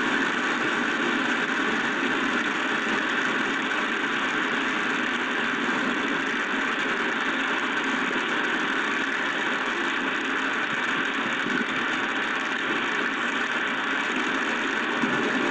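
Steady, even rushing noise of storm wind and driving rain, with no single gust or impact standing out.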